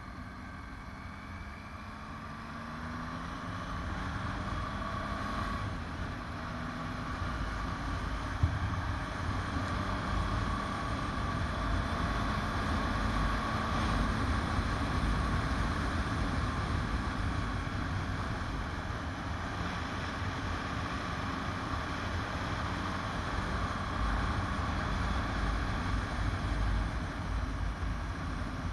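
Motorcycle engine pulling out of a hairpin bend, its note rising over the first few seconds and then holding steady, under wind rush on the microphone that grows louder as the bike picks up speed. There is a single sharp click about eight seconds in.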